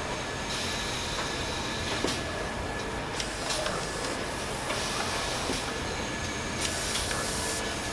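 Steady hum and hiss of automated packaging machinery, with a faint high whine held throughout and a few light clicks.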